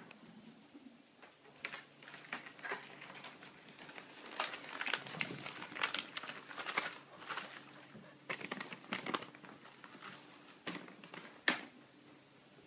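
Puppies' claws clicking and pattering irregularly on wooden deck boards, in uneven clusters, with one sharper click near the end.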